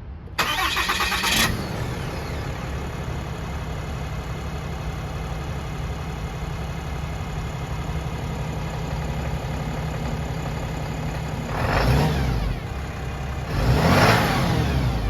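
Diesel pickup truck engine cranking and catching about half a second in, settling into a steady idle, then revved in two short bursts near the end, each rising and falling.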